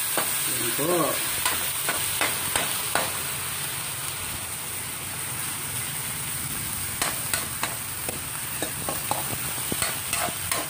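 Chicken pieces sizzling in hot oil in an aluminium wok, sautéing with garlic and onion, while a metal spoon stirs them and clicks and scrapes against the pan. The sizzle is steady, with the spoon's clicks coming in two spells.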